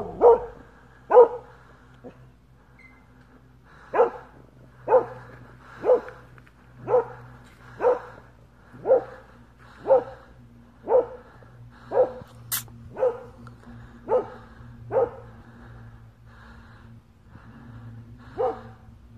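A dog barking: a few quick barks at the start, then a steady run of single barks about one a second, then a pause and one last bark near the end.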